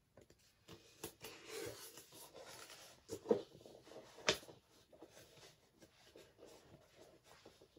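Faint rustling and handling noises with two sharp knocks, about three and four seconds in, the second the louder: a steel helmet being handled and fitted onto a mannequin head.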